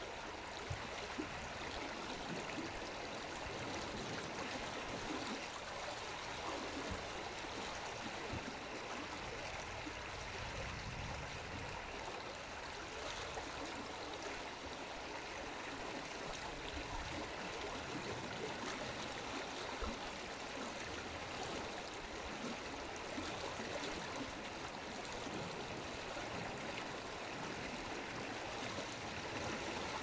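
Running water flowing steadily, an even rush without breaks.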